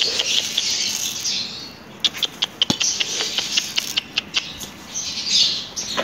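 Birds chirping: a busy run of short, high chirps over a haze of twittering, with a single knock about two and a half seconds in.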